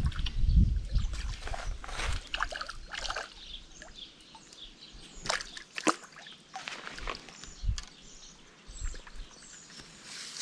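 Water sloshing and splashing at the water's edge, with scattered clicks and knocks of handling.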